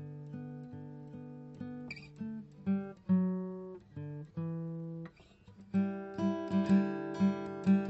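Background music of plucked string notes, sparse at first, then a quicker picked rhythm from about six seconds in.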